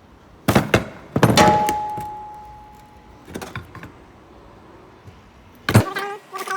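Metal clanks of tools and parts being handled in a workshop: two sharp knocks early on, one leaving a ringing tone that fades over about two seconds, softer knocks a little later and another sharp clank near the end.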